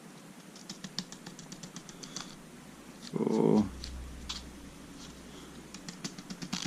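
Small lock pins clicking and ticking as they are tapped out of a padlock's plug into a pinning tray: a quick run of light clicks about half a second in, and another near the end.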